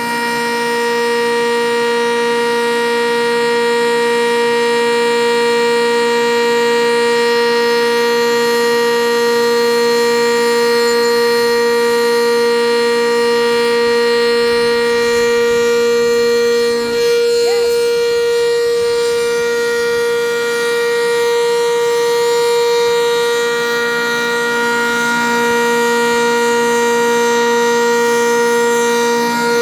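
Sentry 10V electromechanical outdoor warning siren sounding a steady tone at full speed during a scheduled siren test, its pitch holding level, with a brief dip in loudness about 17 seconds in.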